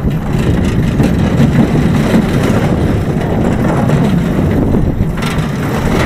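Train of the Howler, a small family roller coaster, rumbling and rattling steadily along its steel track during a rough ride.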